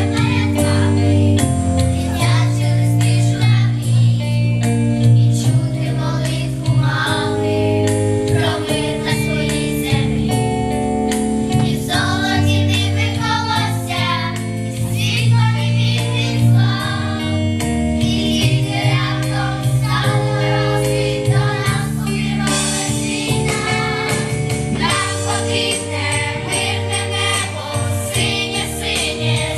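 Children's choir singing a song in unison with instrumental accompaniment, sustained chords changing every second or two under the voices.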